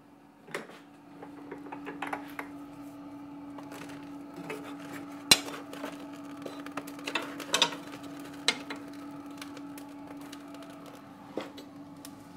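A wood-burning boiler's loading chamber door clunks open about half a second in, then a metal poker scrapes and clanks against the firebox while levelling the ember bed, the sharpest clank a little past five seconds in. A steady hum from the running chimney fan continues underneath.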